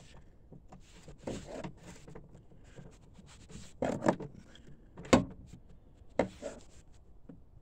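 Socket wrench with an extension working on bolts along a truck's radiator support panel: a handful of separate metal clicks and scrapes, the sharpest about five seconds in.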